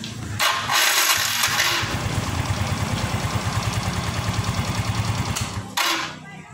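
Yamaha Mio M3 scooter's single-cylinder engine started on the electric starter and running at idle with a steady pulse. Near the end a brief harsh noise comes as the engine stops, the rough 'ngorok' sound that the mechanic traces to a faulty starter motor rather than the engine.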